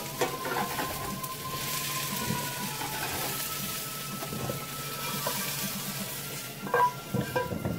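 Potato and carrot chunks sizzling in oil in a nonstick frying pan while a plastic slotted spatula scrapes and scoops them out. Near the end, a few sharp knocks as the pan is tipped and emptied into a plastic bowl.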